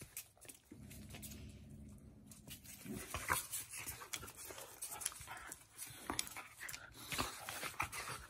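Two dogs play-fighting: a low growl for a couple of seconds about a second in, then panting and scuffling with many quick sharp clicks.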